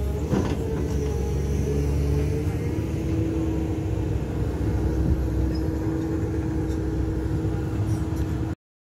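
Caterpillar 320 hydraulic excavator running steadily, its diesel engine and hydraulics giving a constant drone with a held hum as the bucket is moved over the slope; one knock about a third of a second in, and the sound cuts off suddenly near the end.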